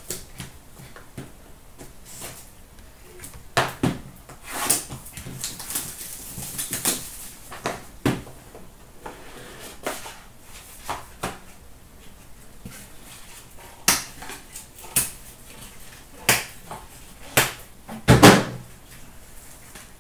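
A sealed trading-card box being unwrapped and opened by hand: plastic wrap crinkling and cardboard rustling, with scattered light knocks and taps, and one heavier thump near the end as the box is handled.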